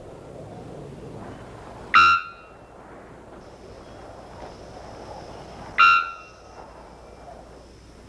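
Three-wattled bellbird calling, two loud, short, ringing notes about four seconds apart, over a steady hiss of forest background.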